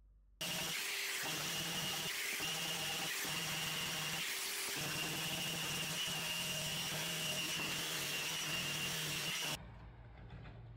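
Makita cordless 5-inch random orbit sander running steadily on a wooden table leg, a steady whir with a high whine. It starts abruptly about half a second in and cuts off suddenly near the end.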